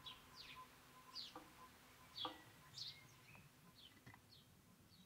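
Faint closing fade of an experimental ambient track: short high chirps falling in pitch, about two a second, over a steady tone that drops away about a second in. The whole thing dies down toward silence.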